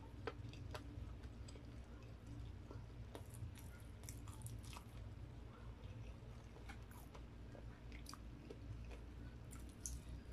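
Close-up chewing of a mouthful of rice and fried chicken, with scattered small wet mouth clicks and crunches. Near the end comes a bite into a piece of fried chicken.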